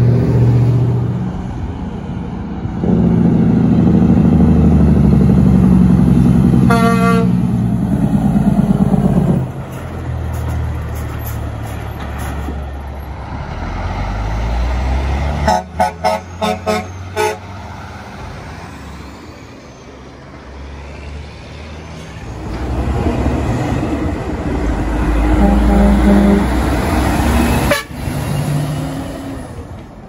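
Semi-truck horns sounding as 18-wheelers pass: a short horn blast about a quarter of the way in, then a rapid run of about six short toots around the middle. Heavy diesel engine and road noise rises and falls with the passing trucks.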